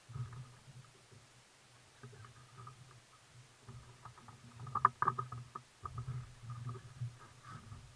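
Spinning reel being wound and the rod worked while jigging from a kayak: light irregular clicks and knocks over a low rumbling that comes and goes, with the loudest cluster of clicks about five seconds in.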